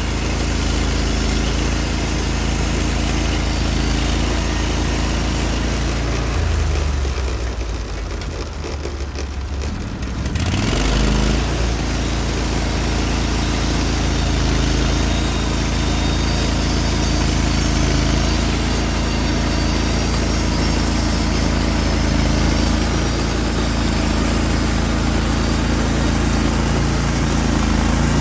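Engine of a Norwood HD36v2 portable bandsaw mill running steadily. About seven seconds in it drops off briefly, then revs back up about ten seconds in.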